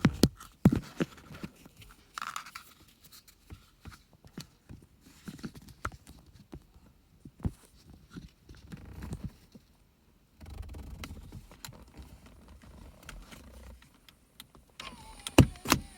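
Scattered clicks, knocks and rattles of hands handling plastic parts and a light around a car's gear shifter, loudest at the start and near the end, with a brief falling whine near the end.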